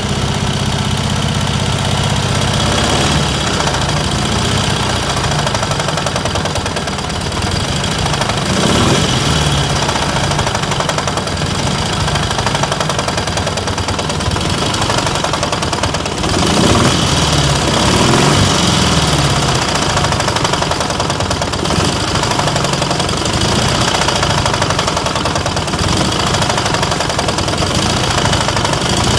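KMZ (Dnepr) motorcycle's flat-twin engine running steadily, revved briefly about a third of the way in and again a little past halfway.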